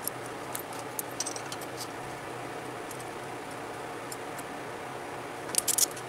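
Light metallic clicks and clinks as valve spring retainers and a valve spring compressor are handled on an LS cylinder head: a few scattered ticks early, then a quick cluster of sharper clinks near the end, over a steady background hum.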